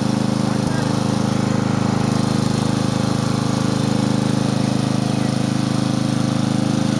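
Murray riding lawn mower's engine running steadily with a rapid, even chugging.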